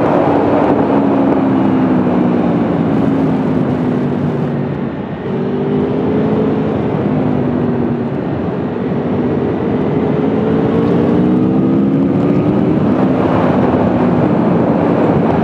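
Aprilia Tuono V4 1100's V4 engine under way on the road, its revs falling and rising several times, with a brief drop in level about five seconds in.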